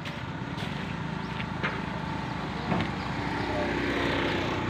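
Busy open-air market background with a passing vehicle engine, most likely a small motorbike, swelling toward the end. A couple of light knocks are heard along the way.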